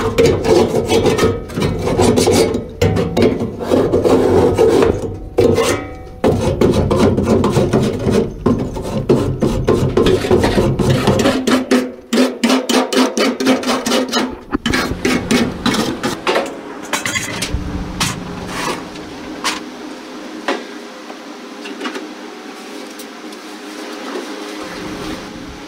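Wire grill brush scraping the inside of a gas grill's firebox, metal on metal, in quick repeated rasping strokes. The strokes are loud at first and grow fainter after about twelve seconds.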